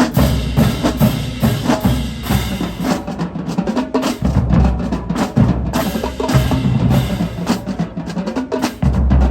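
Marching drumline playing a funk groove: snare drums, tenor drums and bass drums in dense, rapid strokes over deep bass drum hits. It comes in loudly right at the start.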